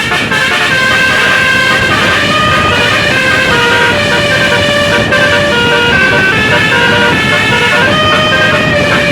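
A bus's basuri telolet musical horn playing a tune without a break, a run of held notes stepping up and down in pitch over a steady noisy background.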